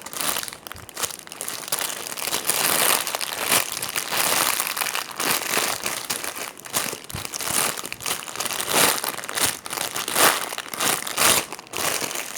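Crinkling and rustling from a soft foam marshmallow squishy toy being squeezed and handled, in dense irregular crackles throughout.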